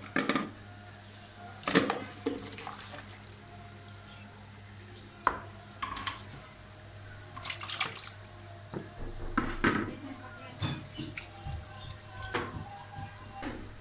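Marinated chicken being drained in a sink: the marinade liquid splashing and pouring off in about a dozen short, irregular bursts, with a few clinks of dishes.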